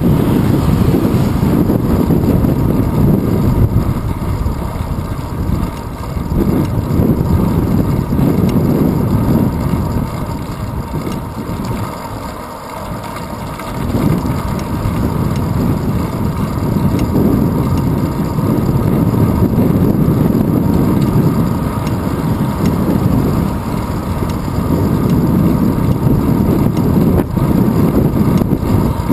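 Wind buffeting the microphone of a handlebar-mounted GoPro on a moving bicycle: a loud, uneven low rumble that eases briefly about halfway through.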